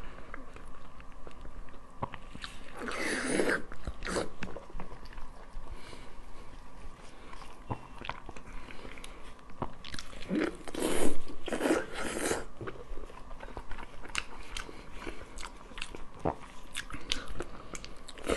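Close, wet chewing, biting and lip-smacking on braised pork hock, with many small smacks throughout. Louder, noisy bites or tears come about three seconds in and again around ten to twelve seconds in.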